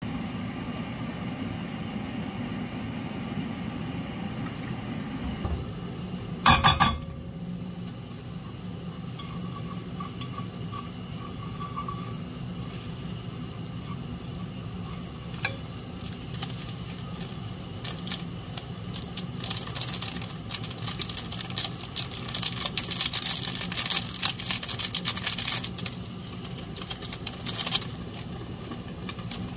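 Tomato paste frying in hot oil in a nonstick pan, with a wooden spoon stirring and scraping. The crackling and spattering thickens in the last third. One short loud clatter about seven seconds in, over a steady low hum.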